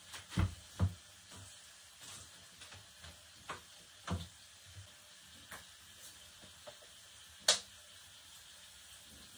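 Kitchen cooking sounds: a utensil clicking and knocking against cookware at irregular moments, the sharpest click about seven and a half seconds in, over food sizzling faintly in a pan.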